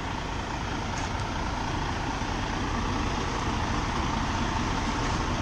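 Freightliner Cascadia semi truck's diesel engine running steadily.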